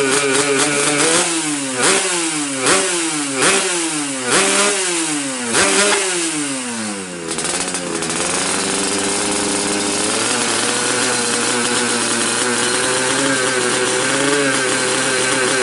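Yamaha RX-King's single-cylinder two-stroke engine revved in about five quick throttle blips, each rising sharply and dropping back. After the last one the pitch falls away in a long glide, and the engine then settles into a steady run.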